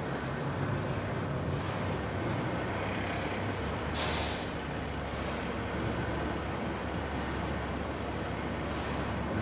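Large factory machine running with a steady low rumble, with a short burst of hissing air about four seconds in.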